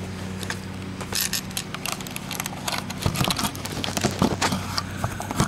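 Irregular clicks, knocks and clatter as a camera and tripod are handled and set up, over a steady low hum that stops about three seconds in.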